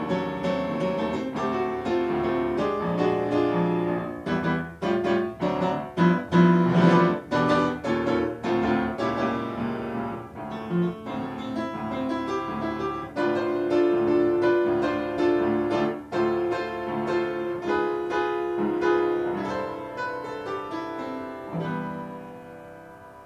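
Solo piano played on a Yamaha acoustic piano. About four seconds in there is a passage of loud, separately struck chords, and the music fades out near the end.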